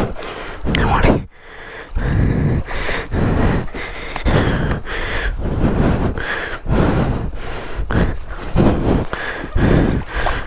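A man breathing hard in quick, regular breaths, about three breaths every two seconds, from the strain of handling a heavy motorcycle in shallow water.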